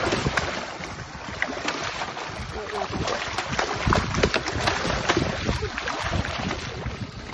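Water splashing and sloshing against a boat's side as a large stingray held at the gunwale flaps its wings in the water, with irregular slaps throughout and the loudest ones about four seconds in.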